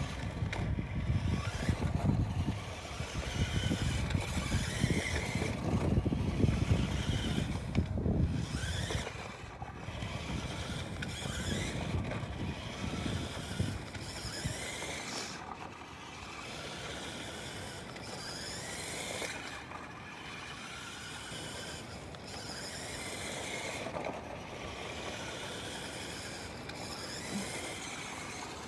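Electric motor of an RC truck whining, rising in pitch each time it speeds up, again and again. A low rumble sits under it, loudest in the first nine seconds.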